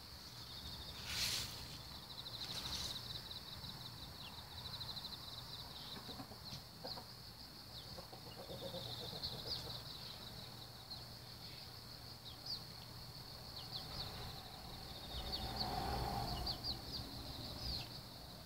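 A hen clucking low and chicks giving short, scattered peeps, over a steady high trill of insects.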